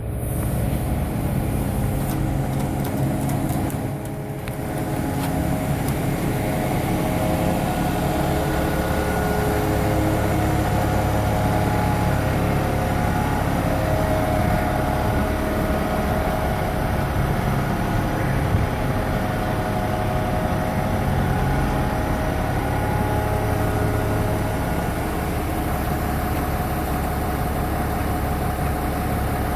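Loaded concrete mixer truck's diesel engine running steadily with a low rumble.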